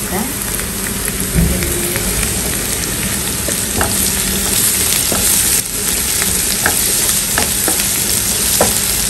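Chopped onions with curry leaves and whole spices sizzling steadily in oil in a nonstick pan, stirred with a wooden spoon that scrapes across the pan several times; the onions are at the softened, sautéed stage.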